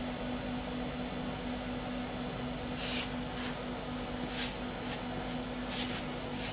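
CNC-converted Central Machinery mini mill running with a steady motor hum and hiss, with a few short high hissing bursts in the second half.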